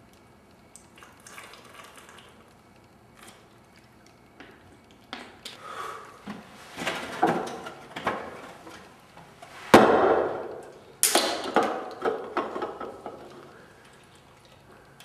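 A run of knocks and clatters that gets busier partway through, with the loudest a sharp hit just before ten seconds in and another strong one about a second later.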